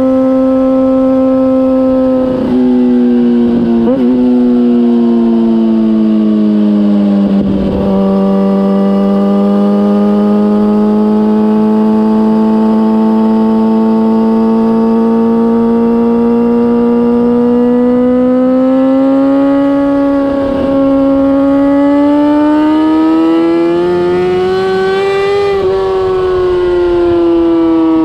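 2004 Kawasaki ZX-6R's inline-four engine running hard through a MIVV GP slip-on exhaust while riding, a loud steady engine note. Its pitch sags over the first eight seconds, climbs slowly to a peak a few seconds before the end, then falls.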